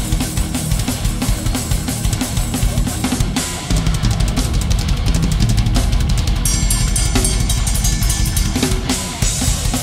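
Thrash metal drumming on a full rock drum kit: bass drum, snare and cymbals played hard and fast. A run of very rapid, dense strokes comes in the middle.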